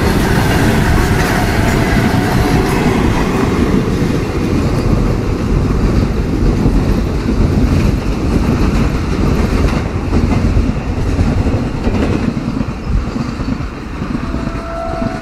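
Covered freight wagons rolling past, their steel wheels clattering over the rail joints in a steady rumble. The noise eases a little near the end as the last wagon and brake van pull away.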